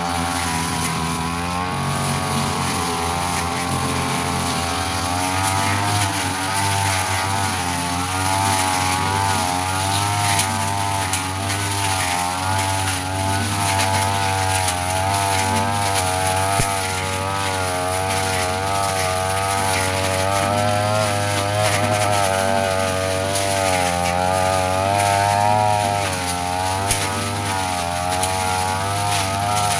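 Yasuka backpack brush cutter's small petrol engine running steadily while cutting grass and weeds, its pitch wavering up and down again and again as the cutting head sweeps through the growth.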